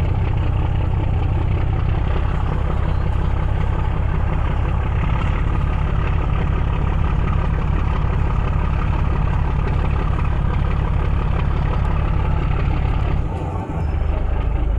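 Engine of the motor vessel MV Mika Mari 3 running steadily with a loud low drone, dipping briefly near the end before carrying on.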